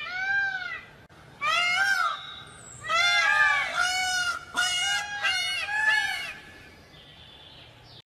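Peacock calling: repeated loud cries, each rising then falling in pitch, in quick runs with a short gap about a second in. The calls stop about six seconds in.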